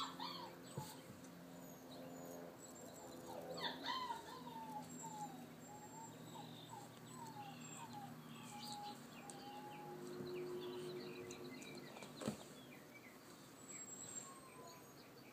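Alaskan Malamute puppy whimpering softly: a run of short high whines, about two a second, starting about four seconds in, with a single sharp tap near the end.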